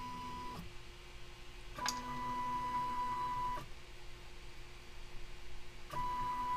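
Trinus 3D printer's stepper motors driving the print head through manual jog moves, each move a steady pitched tone. One move ends just after the start, another runs for about two seconds in the middle, and a third starts near the end.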